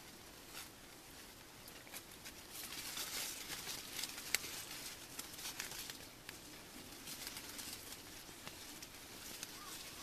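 Faint outdoor background: a steady hiss with scattered light clicks and ticks, a little louder for a few seconds in the middle.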